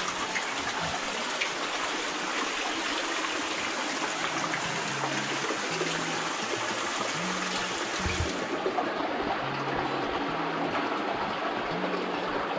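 Steady rush of a waterfall and creek, heard from inside a rock cave beside the falling water.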